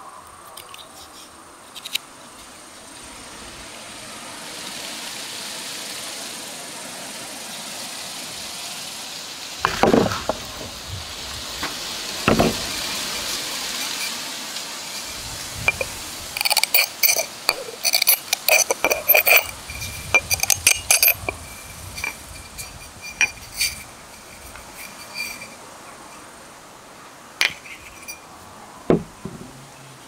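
Metal blade of a multi-tool clinking and scraping against a glass wine bottle: a quick run of sharp clinks with a ringing glass tone, after two duller knocks, then a few scattered clinks near the end.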